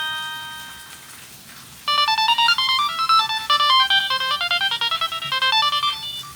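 Nokia ringtone played through the Samsung SGH-A157 flip phone's small speaker. The last note of one tone fades out, and about two seconds in a new tone begins: a fast melody of short electronic notes that stops about a second before the end.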